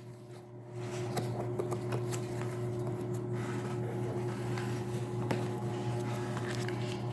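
Steady low machine hum with scattered light clicks and taps from a package being handled and opened.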